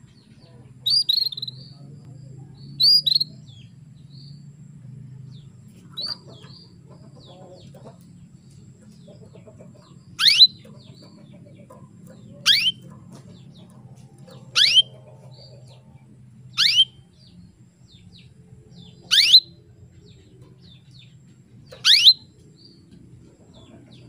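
Female canary calling: a few short chirps, then six loud single call notes that sweep sharply downward, about two seconds apart. It is the female's call to male canaries, over a low steady hum.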